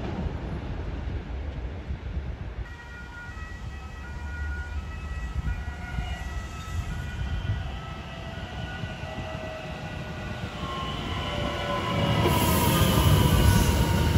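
Bombardier Talent 2 (class 442) electric multiple unit running into a station platform. Its traction equipment gives a cluster of whining tones that sink slightly in pitch as it slows. Louder low wheel rumble and a hiss join in over the last couple of seconds as it draws alongside.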